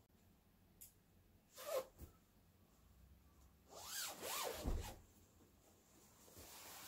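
Bedding being handled: fabric of a pillow cover and duvet rustling and rubbing in short faint bursts, the longest and loudest about four seconds in.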